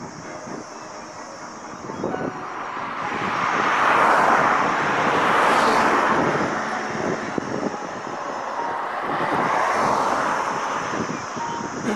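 Road traffic: two vehicles passing, their noise swelling and fading, the first a long rise and fall through the middle and the second near the end.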